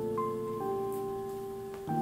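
Instrumental background music: gentle held notes and chords that change every second or so, with a new high note about a quarter of a second in.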